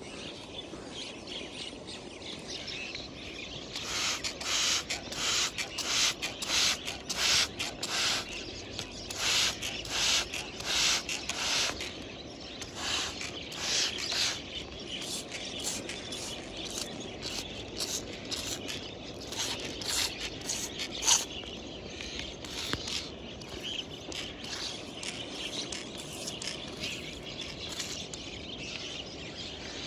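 A knife blade scraping and digging into damp clay and gravel, about two short scrapes a second for some ten seconds, then a few scattered scrapes with one sharper one about two-thirds of the way through.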